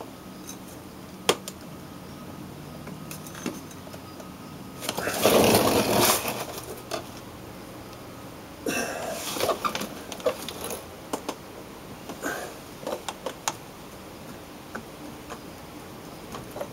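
Metal handling noises as an AC compressor clutch pulley is worked onto the front of a Delphi V5/V7 compressor: scattered sharp clicks, a louder burst of noise about five seconds in lasting a second or so, then irregular clinks and clatters.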